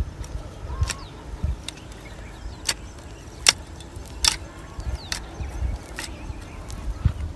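Long-handled hoe chopping into dry red soil while digging out a planting hole, with sharp strikes roughly once a second.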